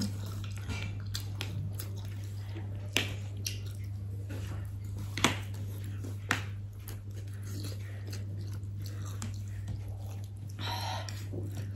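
People chewing and biting into ramen noodles close to the microphone, with a few sharp clicks of metal forks against ceramic plates and a steady low hum underneath.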